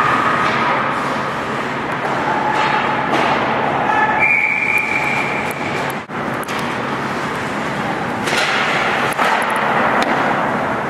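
Ice hockey game sound inside a rink: a steady noisy wash of skates and sticks on the ice, echoing in the arena, with a brief high steady tone about four seconds in.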